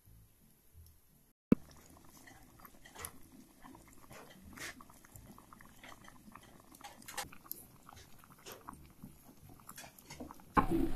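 Chayote stew in guajillo chile sauce simmering in a pot over a wood fire: faint, irregular small pops and crackles, with one sharp click about a second and a half in.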